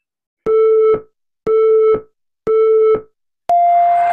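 Workout interval timer counting down: three short beeps on one pitch about a second apart, then a longer, higher beep near the end marking the end of the work interval.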